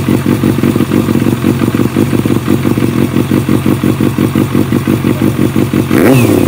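Kawasaki Balius 250's four-cylinder engine idling through an aftermarket RPM exhaust, with a steady, even pulse. Near the end the throttle is blipped once and the revs rise and drop back.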